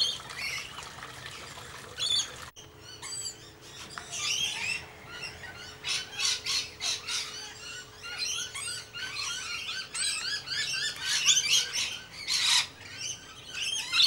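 A flock of rainbow lorikeets screeching and chattering, a dense run of short shrill calls that gets busier from about four seconds in.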